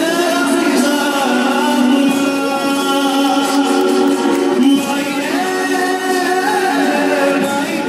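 A man singing a melodic song over musical accompaniment, holding long notes.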